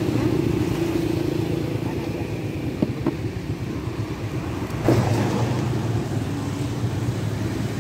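Steady motor vehicle engine noise from nearby road traffic, with a few light knocks about three and five seconds in.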